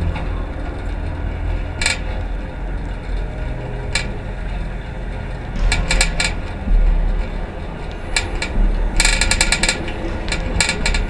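Rusty mamachari (Japanese city bicycle) being ridden, giving short metallic squeaks and creaks from its rusted parts, which come irregularly with a quick run of squeals about nine seconds in, over a steady low rumble of road and wind.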